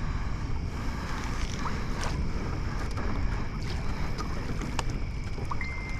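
Wind rumbling on the microphone over water sounds around a canoe, with a few faint clicks.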